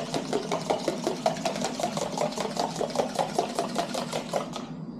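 Eggs being beaten briskly in a plastic cup: a fast, even clatter of the utensil against the cup, about seven strokes a second, stopping near the end.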